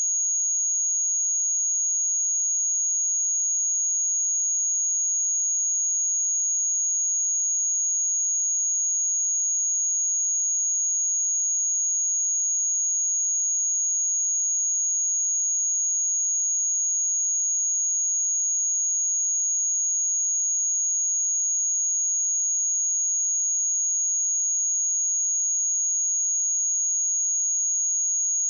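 A single steady high-pitched 6653 Hz sine-wave test tone, holding one pitch at a constant level without a break.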